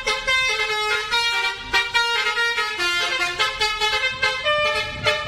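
Bus telolet horn playing a quick melody: a multi-note air horn sounding short steady notes that change pitch several times a second.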